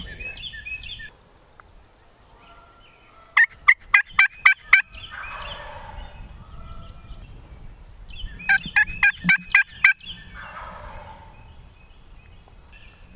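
Wild turkey gobbling twice, each gobble a rapid rattling run of about seven notes lasting about a second and a half, the second gobble about five seconds after the first.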